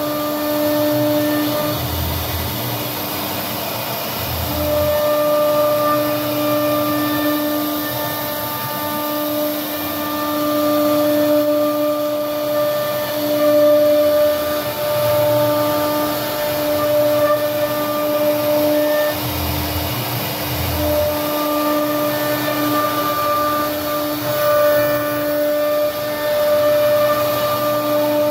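CNC router spindle whining steadily at a high, constant pitch as its bit carves a relief pattern into a wooden door panel. A few short, deeper rumbles come and go as the cut goes on.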